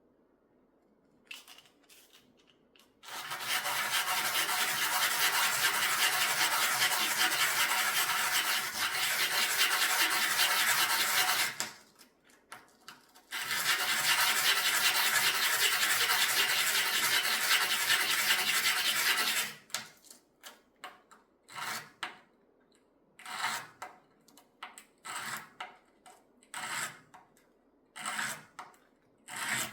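Fine sanding of a jewelry piece: two long spells of steady rubbing, then a run of short separate strokes through the last ten seconds.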